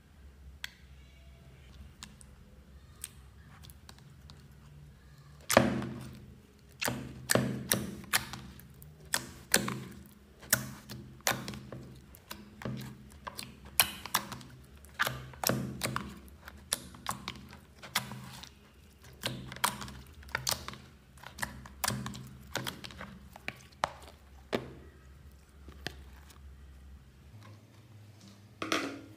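Hands pressing and poking soft slime down into a plastic bowl: a run of sharp, clicky pops and soft thuds, about one or two a second, starting some five seconds in after a quieter stretch.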